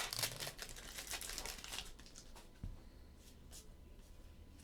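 Trading cards and their foil pack wrappers being handled, rustling and crinkling, busiest for the first two seconds, then a few light ticks as the handling quiets down.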